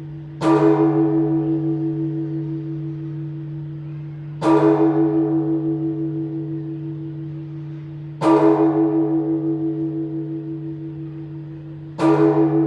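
The large church bell of Phát Diệm Stone Cathedral tolling slowly: four strikes about four seconds apart. Each strike rings on with a pulsing hum that fades until the next one.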